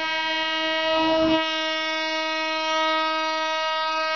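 Train horn sounding one long, steady held note as the train approaches along the market track.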